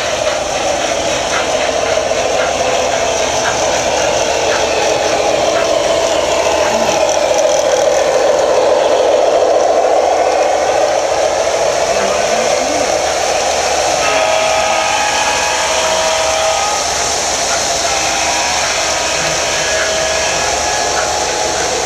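O gauge model freight train of refrigerator cars rolling past on three-rail track: a steady rumble of metal wheels on the rails, loudest around the middle as the cars pass close by. A few short steady tones sound in the later part.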